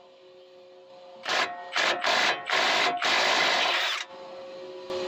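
Impact wrench hammering in five bursts, the last about a second long, on a seized lower ball joint nut. The nut is being broken free, with the ball joint's tapered pin held against spinning by jacking up the steering knuckle.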